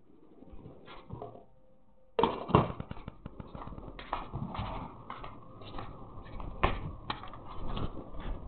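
Handling noise from a small camera being picked up and tumbled about: a faint quiet start, then from about two seconds in an irregular run of knocks, scrapes and rubbing against the microphone, with a few sharper knocks.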